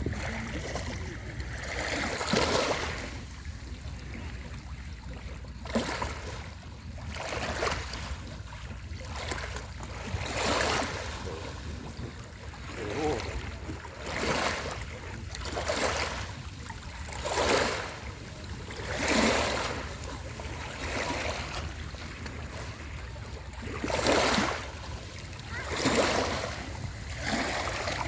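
Small sea waves washing in, a soft whoosh every couple of seconds, over a steady low rumble of wind on the microphone.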